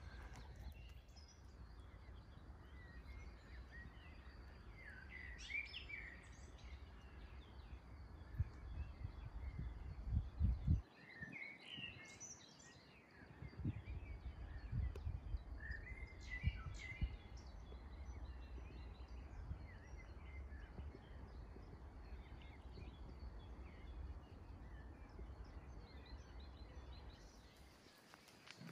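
Outdoor ambience: a steady low rumble, like wind on the microphone, with a few louder low thumps about ten and fifteen seconds in, and three short spells of birdsong.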